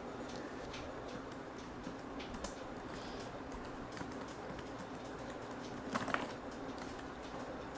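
Keys tapped on a computer keyboard as a search phrase is typed, in short irregular runs of clicks, with a few louder clicks about six seconds in.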